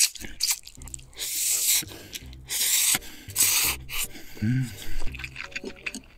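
Loud slurping of a big mouthful of spicy instant noodles: three long slurps, starting about a second in, near two and a half seconds and near three and a half seconds, with shorter wet mouth sounds after.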